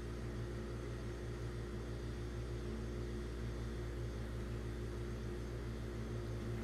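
Electric hair trimmer running with a steady buzz while it cleans up the nape below a fade's lowest guideline.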